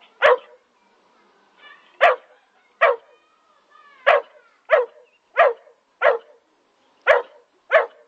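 Twelve-week-old boerboel puppy barking: about nine short barks at uneven intervals, a second or so apart.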